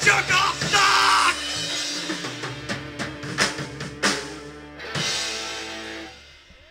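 Live punk rock band playing drums and guitar without vocals. About five seconds in comes a last big hit, which rings out and fades away.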